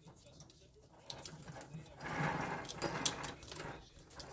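Thread seal tape being wound onto a brass air-hose fitting by hand, with small metallic clicks of the fittings and a dry rustling stretch, lasting a little over a second, starting about two seconds in.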